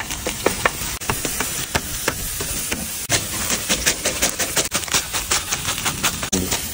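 A sharpened metal spatula's edge cutting through cucumber and a bundle of green stalks held in the hand, a quick run of crisp chopping clicks, fastest in the middle, about five a second. A steady hiss sits underneath.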